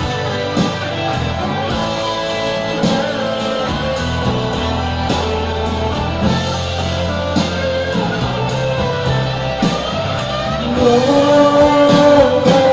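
Instrumental break of an Indonesian pop ballad: band music with guitar over a steady beat, with a louder sustained melody line coming in about eleven seconds in.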